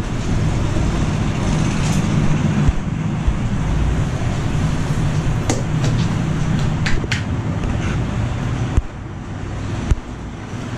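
Steady roadside traffic noise with a low engine rumble, with a few short sharp clicks or taps in the second half.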